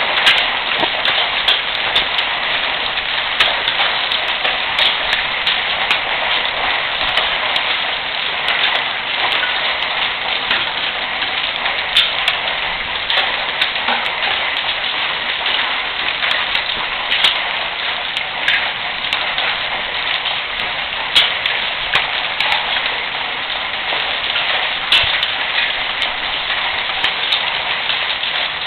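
Hail and rain falling on roofs and surfaces: a dense, steady hiss with frequent sharp ticks of hailstones striking.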